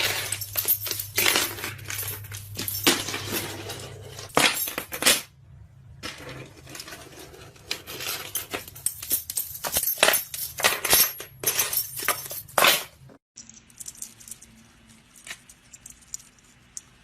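Rapid, irregular clicks and clinks of small hard objects knocking together, dropping to a few faint clicks in the last few seconds.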